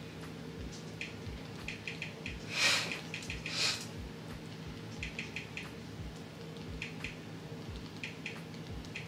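Soft clicks of TV remote-control buttons being pressed repeatedly, some in quick runs, over a low steady hum. Two brief rustling bursts come about two and a half and three and a half seconds in.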